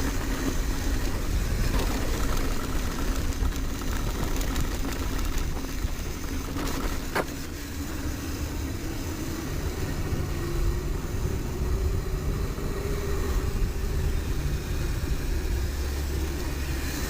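Mountain bike riding fast down a dirt trail: steady wind rush on the microphone and tyres rolling over dirt, with a few sharp clicks and rattles from the bike.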